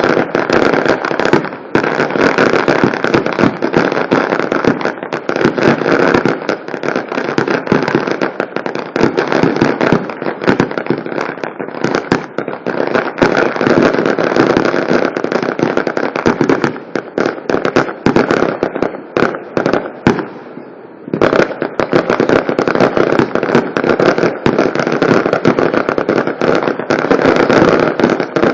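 Fireworks going off in a dense, continuous crackle of rapid pops and bangs. The crackle drops away briefly about two-thirds of the way through, then starts up again.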